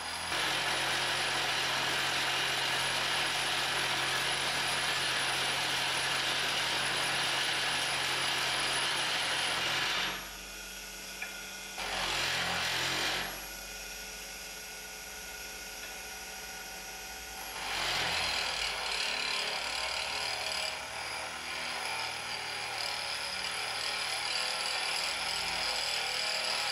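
A bench grinder driven by a washing-machine motor, its green silicon carbide wheel grinding the angles on a brazed carbide lathe tool bit with a steady hiss. The grinding stops for about eight seconds midway, apart from one brief touch, while the motor keeps running with a low hum, then resumes.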